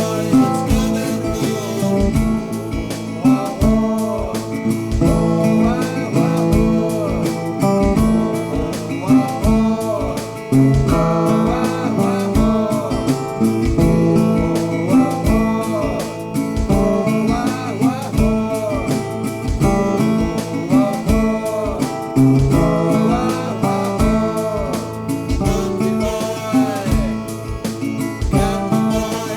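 Background music: acoustic guitar strumming to a steady beat, with a singing voice.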